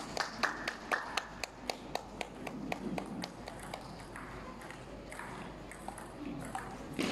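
Celluloid-style table tennis balls clicking off paddles and the table in a rally, a quick run of sharp clicks that thins out about four seconds in, with a faint murmur of voices in the background.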